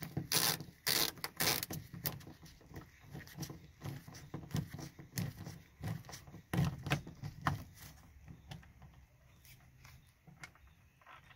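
Screwdriver backing out the sun visor mounting screws in a 2003 Chevrolet Silverado's headliner: a run of irregular clicks, knocks and scrapes of the tool and bracket, which thins out after about eight seconds.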